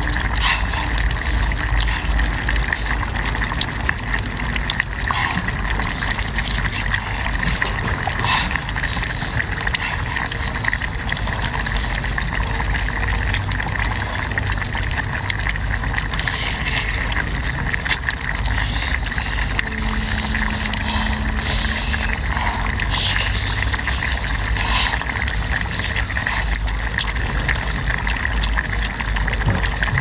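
Wok of seafood simmering and bubbling, a steady watery sound, with short slurps and sucking noises as meat is sucked from shells.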